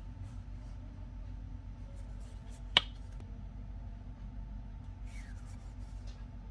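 A single sharp plastic click about three seconds in: the flip-top cap of a gel moisturizer tube snapping open. A low steady room hum runs underneath, with faint handling noise later as the tube is pressed to the skin.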